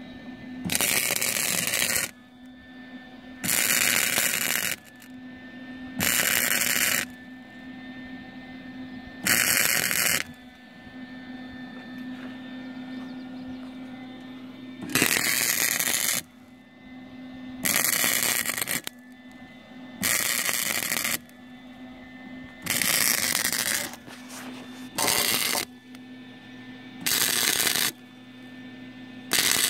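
Wire-feed welder laying short welds on a steel exhaust pipe, about ten crackling bursts of a second or so each, a few seconds apart, with a steady hum between them.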